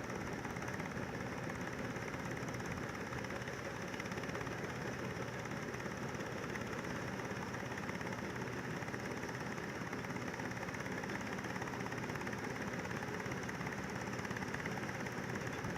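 Combine harvester running steadily, its engine a continuous, unchanging drone.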